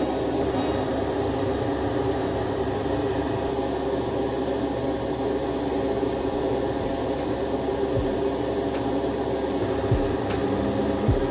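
Steady hum of a spray booth's extraction fan with the hiss of an airbrush spraying paint, and a few faint knocks near the end.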